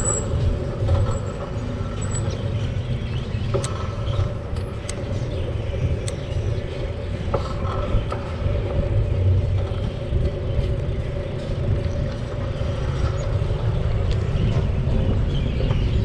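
Continuous wind and road noise while riding a bicycle: a low rumble that swells and fades, with a few faint ticks.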